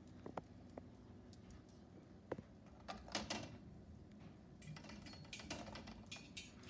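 Faint, scattered clicks and taps of a chihuahua's claws on a tile floor, growing more frequent in the second half as the dog paws and stands up against a baby gate.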